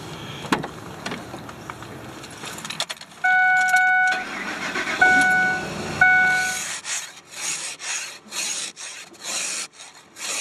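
Clicks of a Ford truck's door handle and keys, then three loud steady beeps about a second apart. After that comes a run of rough scraping strokes, about two a second, as frozen ice is scraped off the frosted window.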